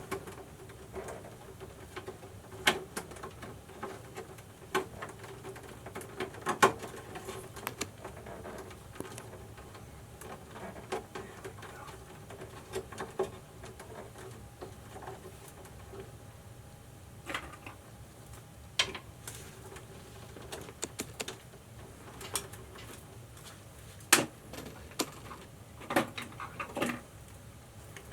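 Irregular clicks, taps and light knocks of hands working a metal cable clamp lock piece into a subpanel knockout around a cable, with short pauses between.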